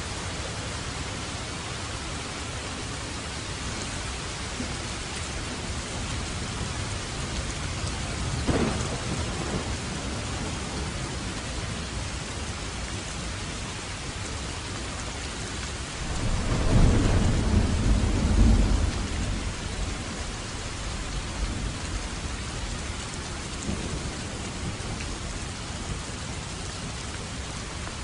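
Steady rain falling, with thunder: a short sharp clap about a third of the way in, and a longer, louder low rumble a little past the middle.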